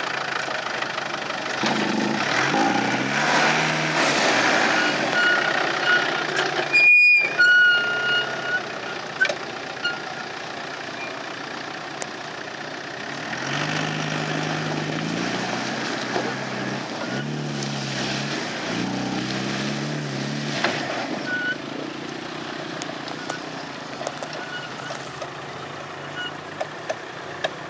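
Land Rover Defender's diesel engine revving up and down in several bursts under load as it crawls over rough ground. A few short high-pitched tones sound about a quarter of the way through.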